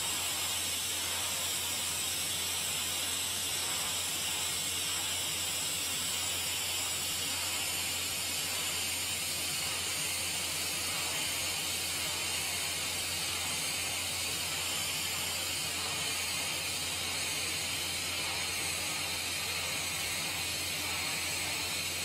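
Steady hiss of a TIG welding arc running a pass on a carbon steel pipe joint, with a low hum underneath.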